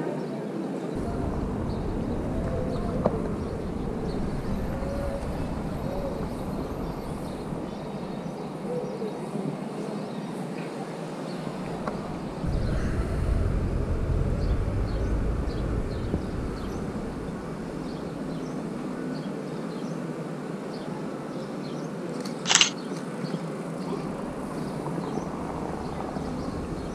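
City street ambience: traffic running steadily with faint distant voices, a vehicle passing closer and louder around halfway through. A single short, sharp click stands out about two-thirds of the way in.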